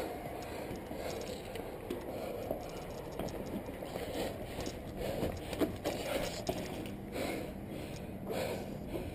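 Wind rumbling on a body-worn action camera's microphone, with scattered scuffs and knocks of shoes and hands on a steel ladder and concrete ledge as a climber steps off the top rungs onto the platform.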